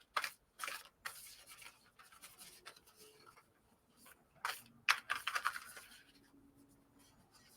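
A new tarot deck being shuffled and handled by hand: cards sliding and brushing against each other in a few short bursts, the loudest a little before the 5-second mark.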